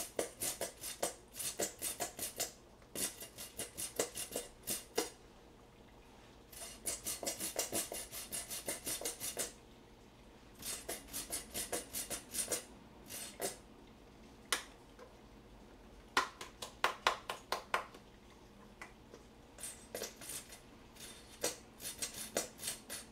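Plastic squeeze bottle of Korean bibim noodle sauce being squeezed out over a bowl of noodles, making runs of rapid crackling clicks with short pauses between squeezes.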